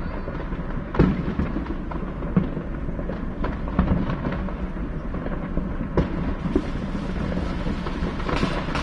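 Fireworks going off some way off: a handful of sharp bangs and pops, the strongest about a second in and others at intervals after, over a steady low rumble.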